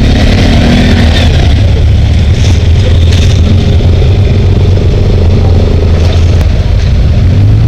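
Off-road side-by-side or ATV engine running steadily with a low, even hum, under a steady hiss.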